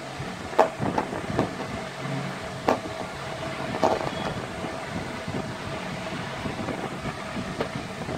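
Light clicks and knocks of a watch strap and a cardboard box insert being handled on a table, a few in the first four seconds, over a steady background hum.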